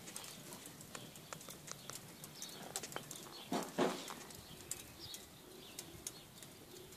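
Wood fire burning in a barbecue grill's firebox, crackling with scattered small sharp pops. Two louder short sounds come close together a little past the middle.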